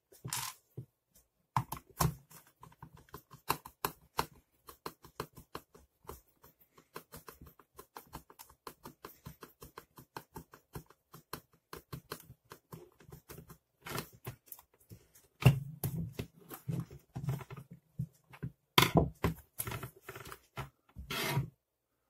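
Screwdriver turning screws into a hair dryer's plastic housing: a long run of small, rapid clicks and creaks. Near the end come a few louder knocks as the plastic dryer and the tool are handled.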